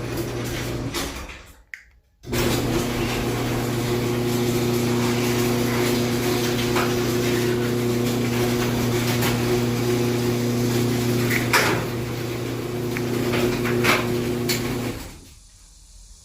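Garage door opener running steadily as the door travels: it stops about a second and a half in, starts again a moment later for the door's run the other way, with a couple of knocks near the end, and cuts off.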